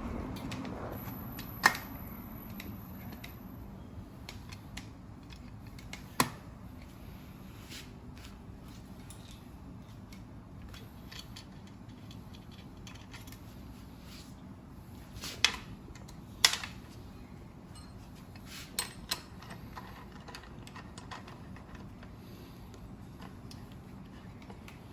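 Scattered small metallic clicks and clinks of bicycle headset parts and tools being handled during reassembly, with a handful of sharp louder clicks, the last two in quick succession.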